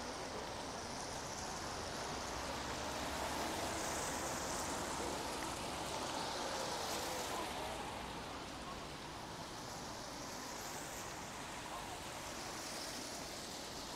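Steady rain falling, an even hiss that swells and fades a few times.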